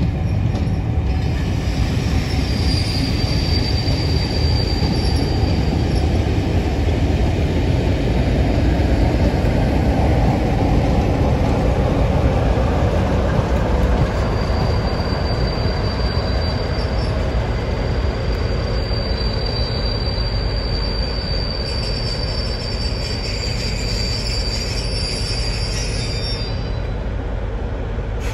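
A rake of passenger coaches and a Class 47 diesel locomotive rolling slowly past over the rails, with a steady low rumble. A thin, high wheel squeal sounds briefly a few seconds in, then again from about halfway until shortly before the end.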